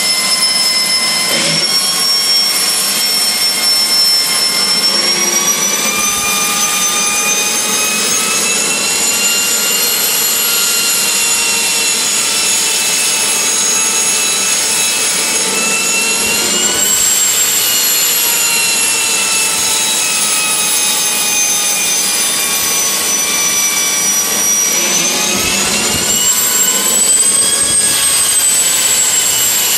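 AiResearch Garrett GTP70-9 gas-turbine APU running, a loud high turbine whine over a rushing roar. Its pitch climbs slowly for the first half, sags a little, then rises again more steeply near the end as the turbine speeds up.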